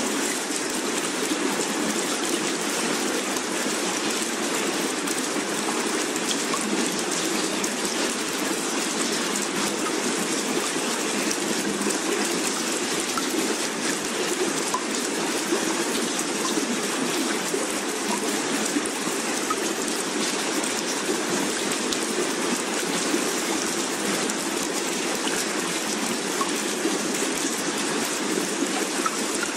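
Steady, unchanging rushing water sound like heavy rain, the background bed of a subliminal affirmation track.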